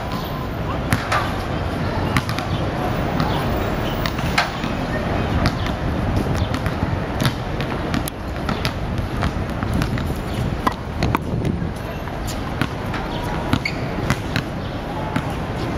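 Balls bouncing on a hard outdoor court: irregular sharp smacks of basketballs hitting the pavement and a tennis ball thrown against a wall, over a steady hum of city noise with voices.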